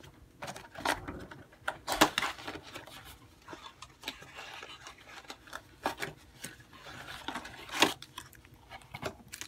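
Cardboard trading-card box and foil card packs being handled, with scattered rustles and sharp taps. The loudest taps come about two seconds in and again near the end.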